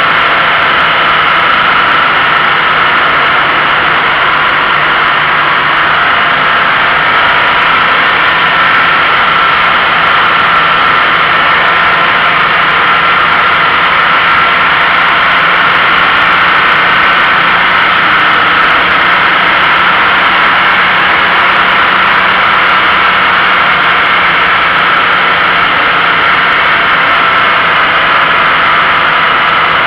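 Toyota GT86 driving at a steady pace: a loud, even rush of road and wind noise from a camera mounted low near the road, with a faint, steady engine note underneath.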